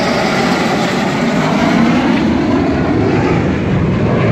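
Loud, steady jet-engine noise of a Dassault Rafale fighter's twin turbofans as the jet passes low overhead on its landing approach.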